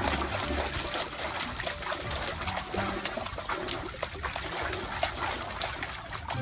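A puppy pawing at swimming-pool water with its front legs, making quick, irregular splashes and trickles.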